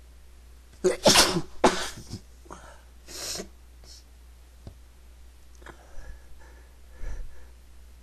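A person sneezing: a sneeze about a second in, with a second loud burst close behind it, then a shorter breathy sound about three seconds in and a few faint clicks after.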